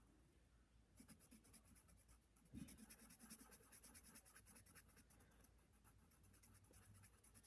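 Pencil scratching on paper in quick back-and-forth shading strokes, faint. It starts about a second in, is busiest from about two and a half to five seconds in, and turns lighter near the end.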